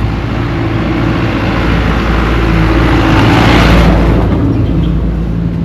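A motor vehicle passes close by: its engine hum runs steadily while the rush of the passing car swells to its loudest about three and a half seconds in, then fades.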